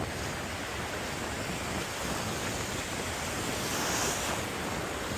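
Small ocean waves washing in around a wader in the shallows: a steady wash of surf that swells into a brighter hiss about four seconds in.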